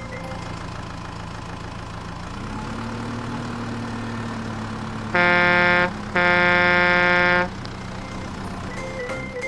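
Truck engine running steadily, its pitch rising a little after about two seconds, with two loud horn blasts, the second longer, about halfway through.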